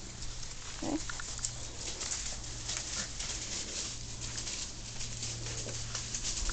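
German shorthaired pointer puppies moving about in long grass: steady rustling and light pattering, with one short low call about a second in.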